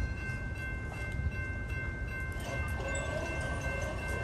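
Railroad grade crossing warning bell ringing steadily, starting just as the flashing signals activate and the gate arm begins to lower. A fainter wavering sound joins underneath about two and a half seconds in.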